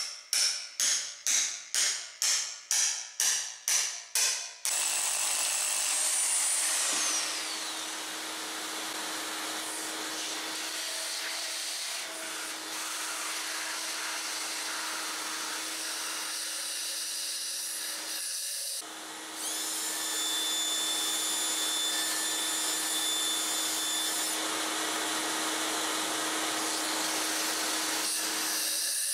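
About a dozen hammer blows, a little over two a second, pounding an anchor bolt into a hole drilled in the concrete floor. About five seconds in, a shop vacuum starts and runs steadily, sucking concrete dust from the anchor holes, with a brief dip about two-thirds through.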